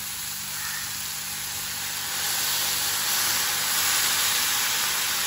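Red amaranth greens sizzling in a hot kadhai as a little water is poured over them; about two seconds in the sizzle swells into a louder, steady steaming hiss.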